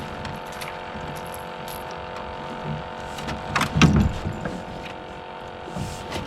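Steady electrical hum with scattered knocks and clunks of gear being handled in a boat, the heaviest thumps about four seconds in.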